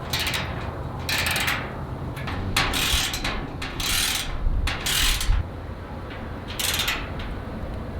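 Hand socket ratchet with a 7/16-inch socket clicking in several short runs as the roof-rack bolts are turned.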